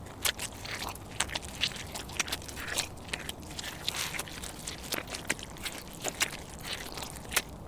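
Footsteps crunching over a loose, crunchy surface, with many sharp, irregular crackles rather than clean, evenly spaced steps.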